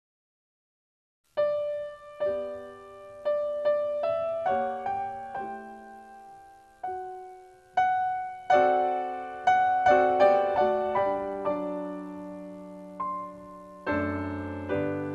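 Slow piano music, single notes and chords each struck and left to ring and fade, starting after about a second of silence; a fuller chord with deep bass notes comes in near the end.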